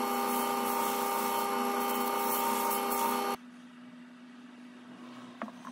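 Wood lathe running with a steady whine while abrasive is held against a spinning wood-and-resin bowl, adding a hiss of sanding. The sound cuts off abruptly about three and a half seconds in, leaving only a faint low steady hum.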